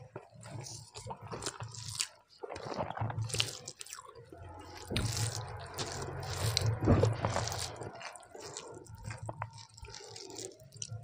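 Wet, squelching eating sounds: rice being mixed by hand with coriander paste on a steel plate, and lip-smacking chewing. The sounds come in irregular bursts and are busiest past the middle.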